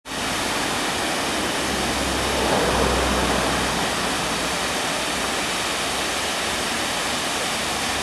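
Waterfalls pouring over mossy rock ledges: a steady, even rushing of falling water, swelling slightly about three seconds in.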